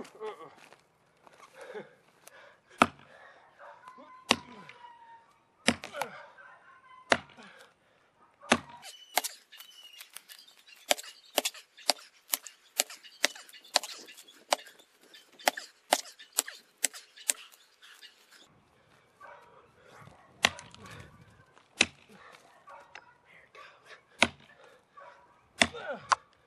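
Axe chopping into the trunk of a partly rotten dead tree: sharp blows about a second apart, with a quicker run of many blows in the middle.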